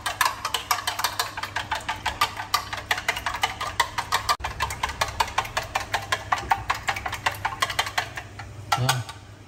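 Chopsticks beating eggs in a small stainless-steel tin: a fast, steady run of light clicking taps against the metal, about five or six a second, with a brief break about midway and a stop near the end.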